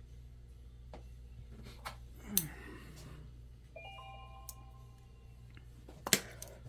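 Light clicks and taps of a small screw and metal tools being handled on an open laptop during reassembly, with two sharper knocks, one a third of the way in and one near the end. A faint set of steady tones sounds for about two seconds in the middle.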